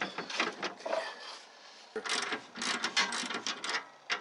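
Ratchet wrench clicking in quick runs as a bolt on a snowmobile ski mount is turned, with a short pause about a second in.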